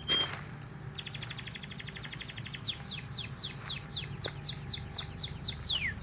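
Songbird singing: a high rapid trill of short notes, then a series of quick downward-sweeping whistles, about three a second.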